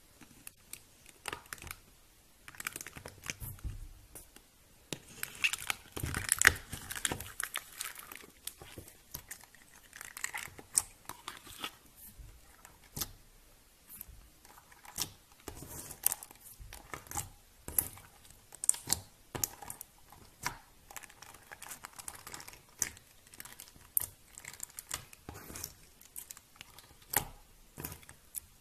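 Slime being poked, pressed and squeezed by fingers: a steady stream of irregular sticky clicks, pops and crackles as air pockets burst, busiest about five to seven seconds in.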